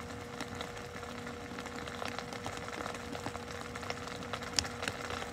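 Steady background hum, one unbroken tone over a faint even hiss, with a few light ticks.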